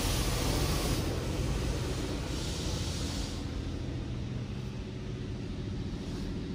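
Automatic car wash tunnel's water jets spraying over the car, heard from inside the cabin, over a steady low hum. The hiss of the spray swells and fades as the jets sweep past, loudest in the first second and again at about two and a half seconds.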